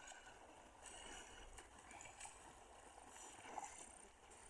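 Near silence: faint open-air background noise.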